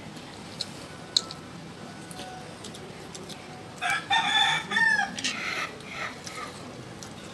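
A rooster crows once, about four seconds in: a pitched call of about a second and a half that bends at its end, then trails off.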